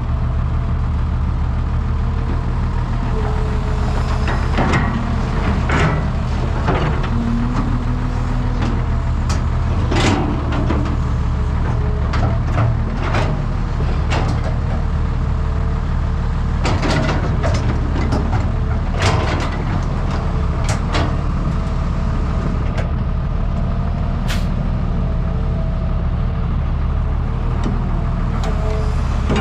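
Excavator's diesel engine running steadily under work, with many short, sharp clanks and hisses from the machine scattered through.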